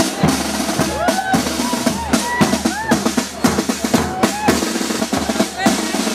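Marching band drums, snare and bass drum, beating a fast, busy rhythm, with a few high rising-and-falling sounds over the drumming.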